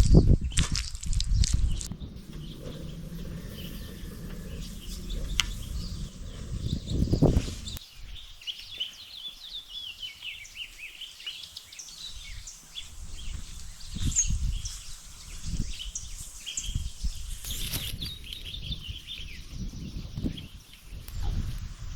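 Small birds chirping and trilling, clearest in the second half, over faint outdoor noise. The first few seconds hold low thumps and a steady low rumble that stops about eight seconds in.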